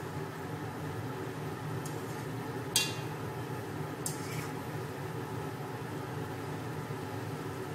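A fork and spoon tossing noodles in a non-stick pot, with one sharp clink of metal on the pot about three seconds in and a couple of lighter clicks around it, over a steady electrical hum.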